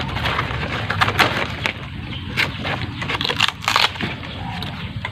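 Close-up crunching and chewing of crisp raw coconut heart, with irregular sharp crackling bites over a steady low hum.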